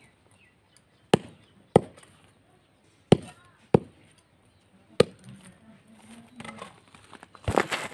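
Hand hammer striking something hard at ground level: five sharp blows, the first four in pairs about half a second apart. A longer, rougher knock follows near the end.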